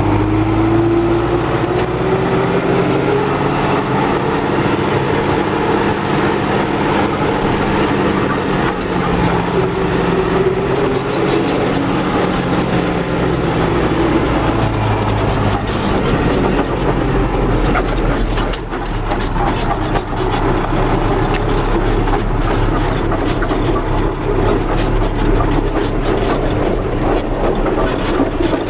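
MTZ tractor's diesel engine and drivetrain running as the tractor drives, the pitch rising over the first few seconds and then shifting with speed. This is a test drive after repair of the axle, gearbox and clutch, and the axle gives no hum.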